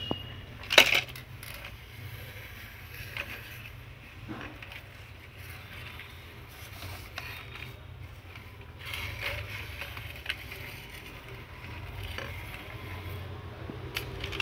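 Plastic toy vehicles being handled and pushed about on a hard floor: scattered clicks and clacks of plastic, with one sharp clack about a second in, over a steady low hum.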